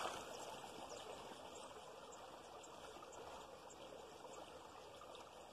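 The fading end of a cast net's splash into a pond at the very start, then quiet, steady background hiss with a few faint high ticks.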